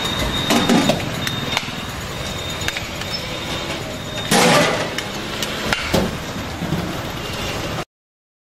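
Roadside street noise with passing traffic, and scattered clinks and knocks as biryani is scooped from a large metal pot onto plates; a louder burst of noise comes about halfway through. The sound cuts off abruptly near the end.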